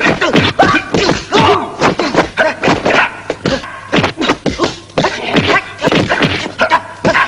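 Rapid whacks and thuds of punches and blocks in a hand-to-hand kung-fu exchange, several hits a second, mixed with short vocal sounds.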